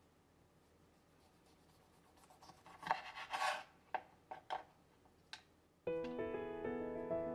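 Chef's knife slicing through lemon wedges on a wooden cutting board: a run of short cutting strokes and taps on the board, one longer slicing stroke among them, starting about two seconds in. Piano music comes in near the end.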